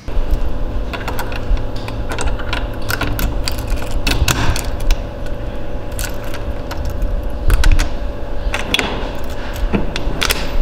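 A bunch of keys jangling and clicking against a lock in a quick, irregular string of sharp metallic clicks, over a steady low rumble.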